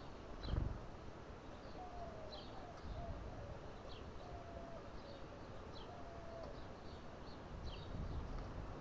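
Small birds chirping: many short, high, falling chips scattered irregularly, with a faint low wavering tone through the middle and a couple of low thumps of wind on the microphone.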